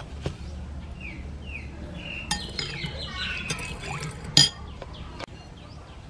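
Metal spoon clinking against a ceramic bowl while stirring sugar into hot water: a few irregular clinks, the loudest about four seconds in.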